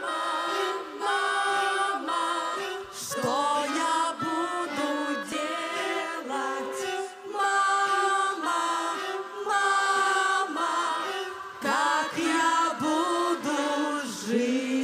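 Symphony orchestra music led by bowed strings, playing short held chords broken by brief gaps, with notes sliding up between them.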